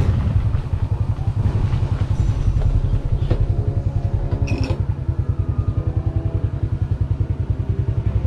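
Motorbike engine running steadily with a rapid, even low throb.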